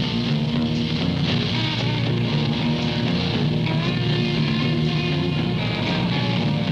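Rock band playing an instrumental passage with electric guitar, without singing.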